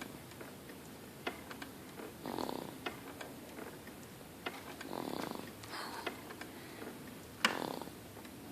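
Baby snoring in sleep: three raspy snores about two and a half seconds apart, with a few small clicks between them.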